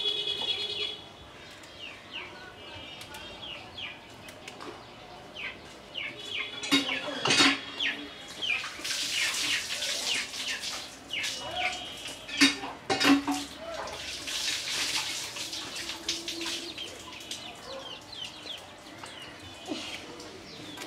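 Leaves and stems rustling as sour leaves are stripped from their stalks by hand into bowls, with louder rustling spells about nine and fourteen seconds in and a few sharp knocks. Small birds chirp and chickens cluck throughout.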